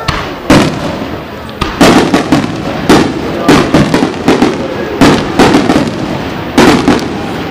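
Aerial firework shells bursting overhead: about a dozen sharp bangs, some in quick pairs, over a running crackle.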